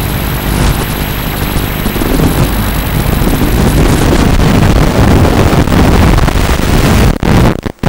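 Loud, steady low rumble of wind buffeting a fast-moving camera's microphone. It grows louder about two seconds in and cuts out for about half a second near the end.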